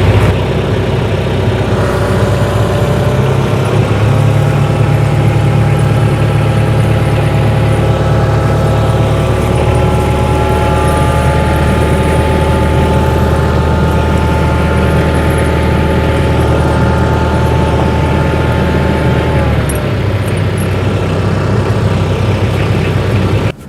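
Tractor engine running steadily, with a whine above the engine hum that drops in pitch about three-quarters of the way through. The engine cuts off abruptly near the end.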